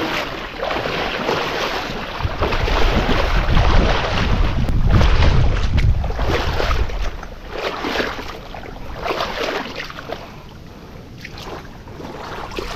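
Water splashing and sloshing as a person wades through shallow, muddy creek water. A low rumble of wind on the microphone runs through the first half.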